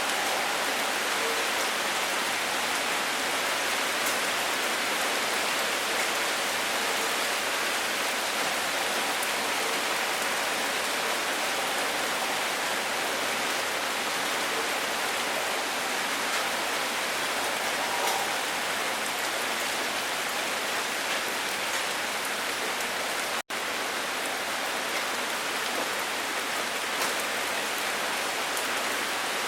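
Steady rain falling: an even hiss with faint scattered drop ticks. It cuts out for a split second about three-quarters of the way through.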